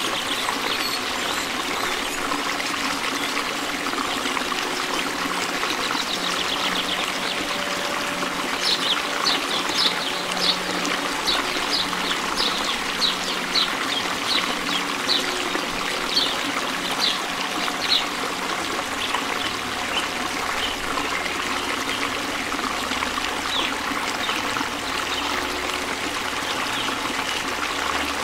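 Steady trickle of running water, like a small stream. From about eight seconds in to about eighteen seconds it carries a run of short, high chirps, roughly two a second.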